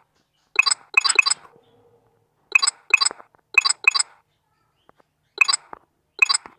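Small hard objects clinking together: about ten short, bright, ringing clinks in small groups of two or three.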